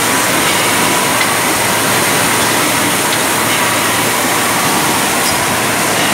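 Steady, loud din of bottling-line machinery and conveyors running, a continuous mechanical rumble and hiss with a faint steady whine.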